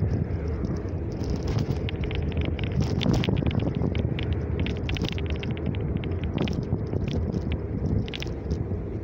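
Wind buffeting the microphone over a steady low rumble of tyres rolling on asphalt during a bicycle ride, with irregular light rattling clicks throughout.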